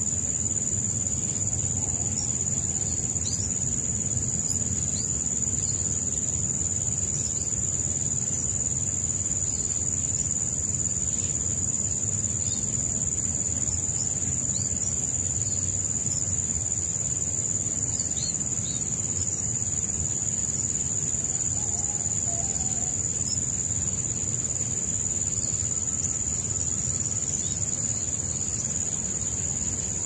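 Steady high-pitched trill of crickets, unbroken and even, over a low steady rumble.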